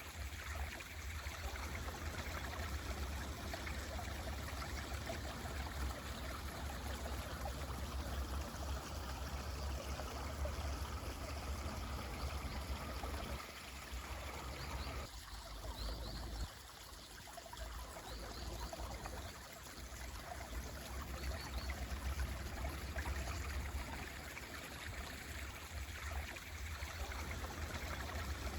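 Mountain stream flowing steadily, a continuous rushing and trickling of water, with a few faint high bird chirps. The water briefly drops off and thins about halfway through.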